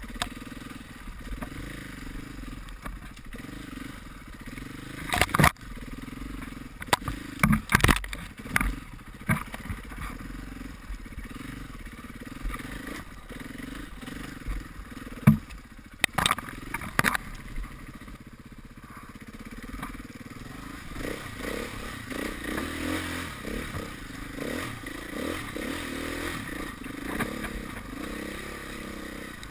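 KTM 500 EXC enduro motorcycle's single-cylinder four-stroke engine running under constantly changing throttle, with sharp knocks and clatter several times in the first half as the bike goes over rough ground. In the last third the engine gets louder and higher as the rider opens the throttle more.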